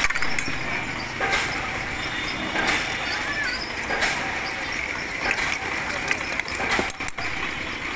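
Busy outdoor street-stall ambience: background chatter of a crowd with scattered clicks and knocks over a steady noise bed.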